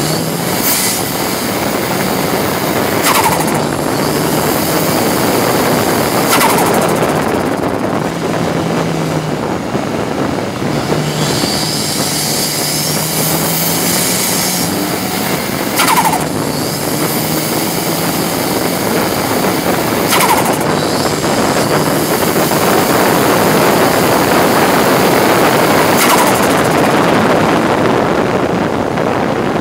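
Ford Sierra RS Cosworth's turbocharged four-cylinder race engine under hard acceleration, heard from inside the stripped cabin as loud engine and road noise, with several short sharp bursts every few seconds.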